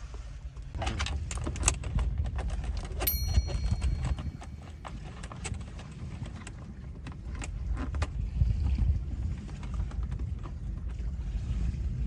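Irregular plastic clicks and rattles from a wire and a plastic cable tie being fed through an opening in a car's centre-console trim, over a low steady rumble. A brief high ping sounds about three seconds in.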